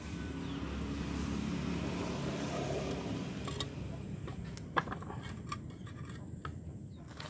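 Low rumble of a motor vehicle running that fades after about three seconds, then scattered sharp clicks and one louder knock as a porous coral rock is lifted and handled over a concrete bonsai tray.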